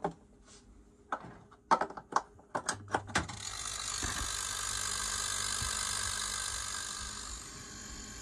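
A salvaged refrigerator compressor, rigged as a vacuum pump: a quick series of sharp clicks, then about three seconds in it starts running with a low hum and a steady rush of air, which eases a little near the end.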